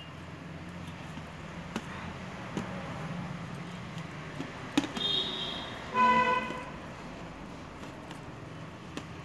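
Background traffic with a vehicle horn honking once, briefly, about six seconds in, and a short higher-pitched toot just before it. A few light clicks and knocks are heard earlier.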